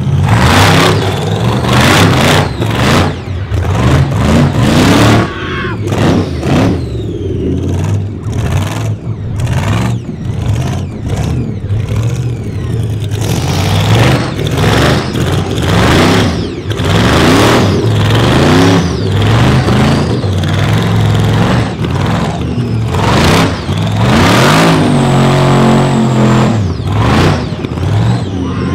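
Rock bouncer buggy's engine revving hard in repeated bursts of throttle, the pitch rising and falling, as it climbs over rocks and tires.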